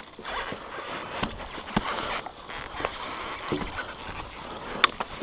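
Footsteps on wet logs and through long grass, with rustling and scattered knocks, and one sharp click near the end.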